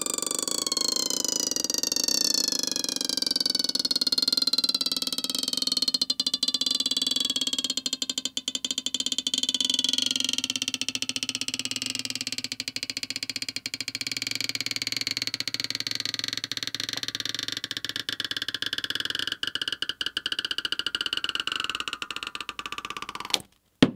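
Stretch-release adhesive strips under an iPhone 15 battery squealing as they are pulled out: a long high whine with several pitches at once, sliding slowly downward over a fine crackle. It cuts off suddenly near the end as the strip comes free and the battery lifts.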